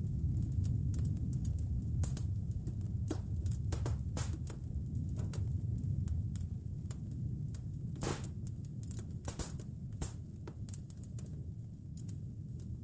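Wood fire crackling, with irregular sharp pops and snaps over a steady low rumble of fire and wind, gradually getting a little quieter.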